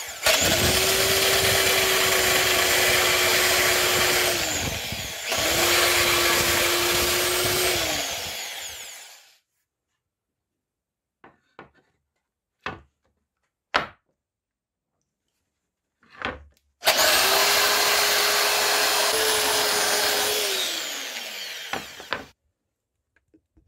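Electric belt sander switched on three times for a few seconds each on plywood. Each run is a steady motor whine with the sound of the belt working the wood, and it winds down over about a second when switched off. Between the second and third runs come a few light knocks of wood being handled.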